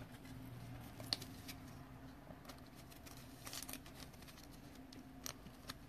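Faint clicks and rustling of hands handling a trading card and sliding it into a rigid plastic top loader, with one sharp click about a second in, over a steady low room hum.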